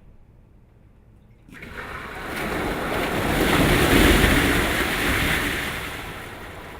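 A rush of water surging in like a breaking wave. It starts about a second and a half in, swells to its loudest around the middle, and slowly fades away.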